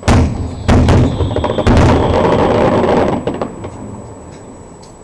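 Aerial firework shells bursting: three loud bangs in under two seconds, followed by a dense noisy tail that dies away over the next couple of seconds.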